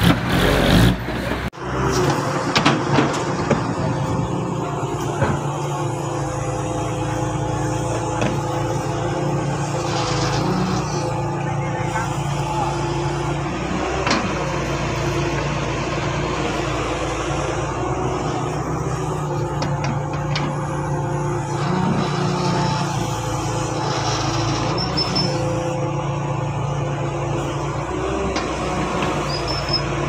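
Heavy diesel earthmoving machinery, chiefly a hydraulic excavator, running steadily at work, with a few sharp knocks and clanks. There is a brief sudden dip in level about a second and a half in.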